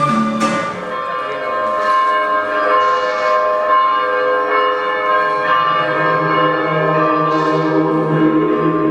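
Bells ringing in a peal: a strike about half a second in, then many overlapping tones that ring on and fade.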